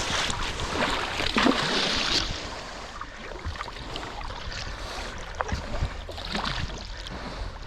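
Kayak paddle strokes splashing in shallow river water, with the river running, louder for the first two seconds and then quieter with scattered small splashes.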